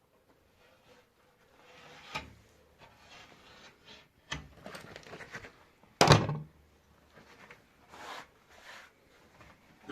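Scattered knocks and rustling handling noises, with one sharp, loud thud about six seconds in.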